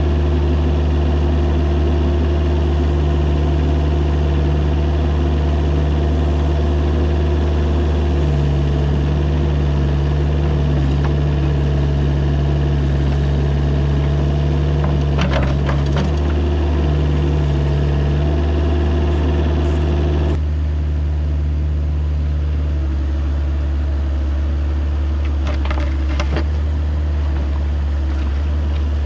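Mini excavator's diesel engine running steadily, its note shifting now and then. A few short clatters come about halfway through and again near the end.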